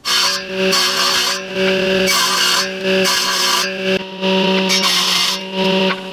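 A woodworking machine's motor hums steadily while its cutter shapes narrow wooden window strips. Each strip fed along the fence adds a loud rasping cut, about once a second, with short dips between passes.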